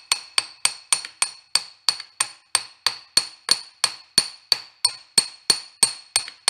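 Hammer tapping a drift against a steel coupler on a shaft in a steady rhythm of about three blows a second, each with a short, high metallic ring. The blows are meant to knock the coupler off, but it is not moving.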